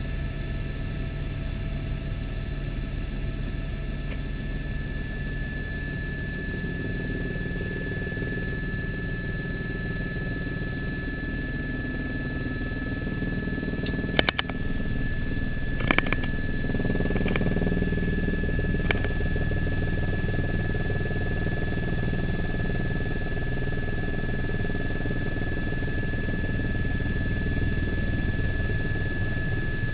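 Helicopter turbine and rotor noise heard inside the cabin: a steady low rumble under a high, steady whine. A few short sharp clicks come about halfway through, and the rumble grows a little louder after that.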